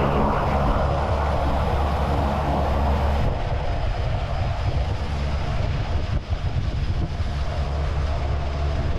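Single-engine jump plane's piston engine and propeller running steadily at idle with the side door open, a steady low drone, with a rushing noise over it that eases about three seconds in.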